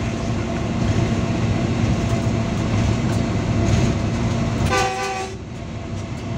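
A GE diesel-electric locomotive running at speed, heard from inside its cab: a steady engine drone with the rumble of wheels on the rails. A short horn blast of several tones at once sounds about five seconds in.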